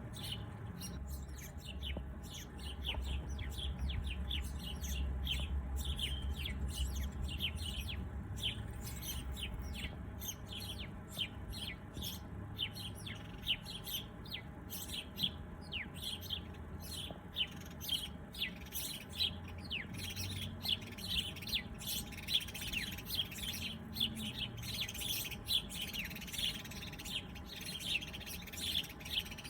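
Several small birds chirping and twittering in quick, short notes, denser in the second half, over a faint low background rumble.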